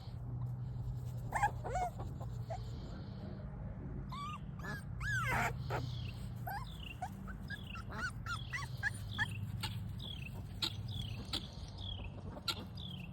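Puppies whimpering and yipping: many short high squeals, some rising and some falling, over a steady low hum.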